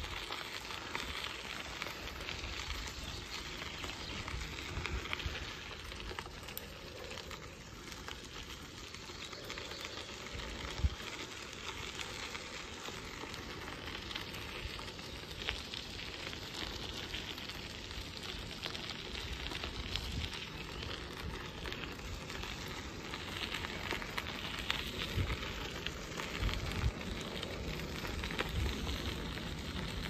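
Bicycle tyres rolling over a gravel path, a steady crackling crunch, with gusts of wind rumbling on the microphone and one sharp knock about eleven seconds in.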